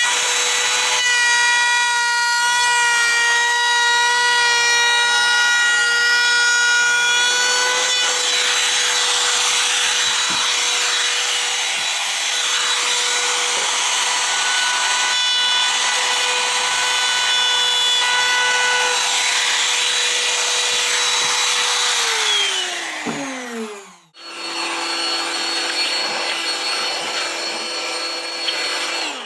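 Bosch Colt compact router running at high speed with a steady whine, its roundover bit cutting along the edges of a wooden cutting board. About 22 seconds in it is switched off and the whine falls in pitch as it spins down. After a brief break, a lower steady motor sound runs near the end.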